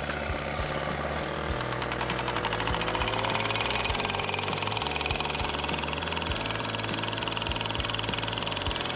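Titan PGD3200X gas post driver, its small Honda GX engine revving up over the first few seconds and then holding, while its hammer pounds rapidly and steadily on a wooden tent stake, driving it into the ground.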